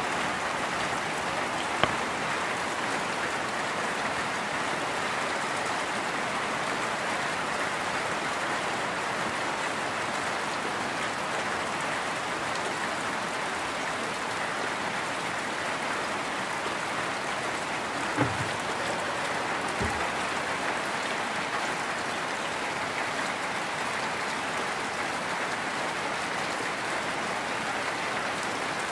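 Steady rain falling, an even hiss with no let-up. A sharp tap comes about two seconds in, and two short low thumps come a little past the middle.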